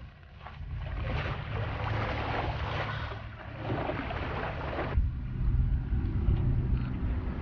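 Wind blowing against the microphone: a steady low rumble under a hiss. About five seconds in, the sound shifts abruptly, the rumble heavier and the hiss fainter.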